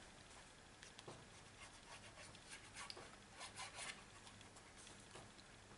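Faint rubbing and light scratchy ticks of a Tombow liquid glue bottle's tip drawn along the edges of cardstock, with a few slightly louder strokes about three and a half seconds in.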